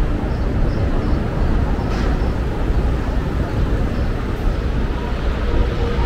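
Busy city street ambience: a steady low rumble of traffic with scattered voices of people walking by, and a short clack about two seconds in.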